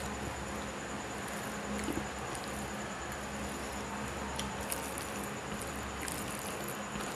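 Fingers mashing and mixing boiled vegetables into rice on a plate, with soft squishing and a few light clicks, over a steady electrical hum.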